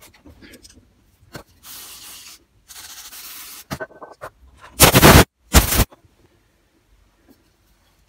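Small Honda GX120 carburettor parts being cleaned: two short hisses of spray, then about five seconds in two loud blasts of air blowing through a small part, with light metal clicks in between.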